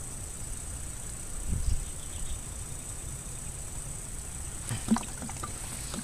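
Soft rustles and knocks of hands handling a small caught perch on the hook, with a sharper knock about five seconds in, over a steady high-pitched whine and a low rumble that swells briefly about a second and a half in.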